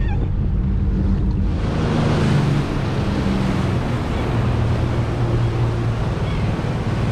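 Small fiberglass fishing boat running under power across choppy water: a steady engine hum under the rushing of water and wind on the microphone. The rushing hiss gets much louder about a second and a half in.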